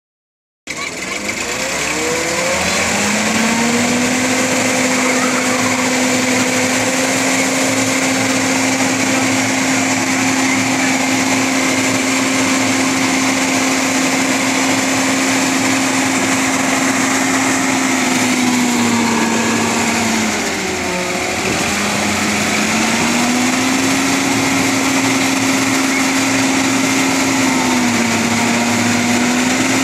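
Minitractor-mounted vacuum blower driven by the tractor, starting up and running. Its hum rises in pitch over the first couple of seconds, then holds steady. The pitch dips briefly and recovers about two-thirds of the way through, with a smaller dip near the end.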